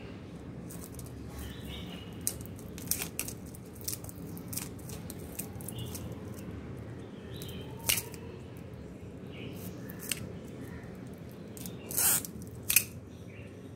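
Kitchen knife blade cutting and scraping into a dry, hatched-out praying mantis egg case (ootheca): a run of short scrapes and crunches, the sharpest about eight seconds in and twice near the end.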